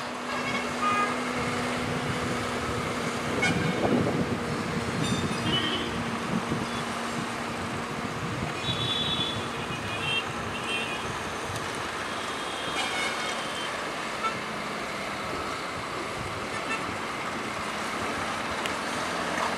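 Locomotive-hauled passenger train approaching along the track, a steady rumble with a faint continuous low hum.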